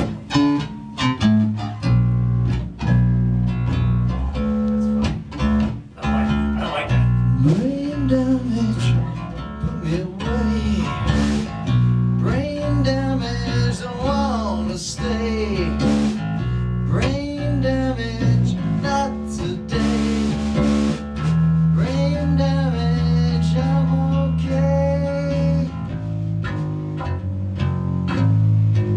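Live punk rock band playing a soft, slow arrangement: guitar and bass chords, with a man singing over them from about seven seconds in.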